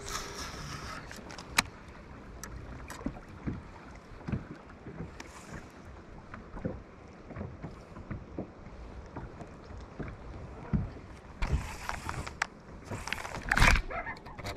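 Small fishing boat on the water: low water and hull noise with scattered small knocks and clicks, and two louder bursts of noise near the end.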